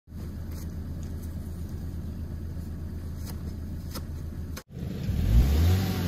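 A car engine idles with a steady low hum and a few faint clicks. After a sudden cut about four and a half seconds in, the Mazda6's engine revs up with a rising pitch and a hiss of snow under the tyres as the car pulls free, loudest near the end.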